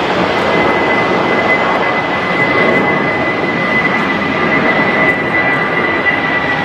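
Jet airliner engines running: a steady roar with a high, unchanging whine over it.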